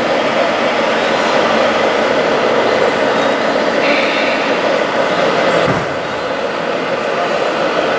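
Electric motors and gear drives of radio-controlled model construction vehicles (an RC excavator and tipper trucks) whirring steadily, with a higher whine joining about four seconds in.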